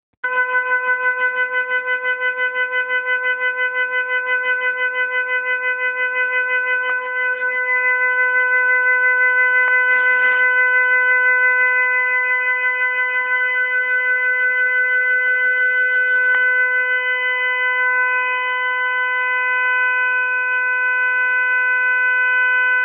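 Hot water tap making a loud, steady humming tone with overtones. The tone warbles quickly for about the first seven seconds, then holds steady.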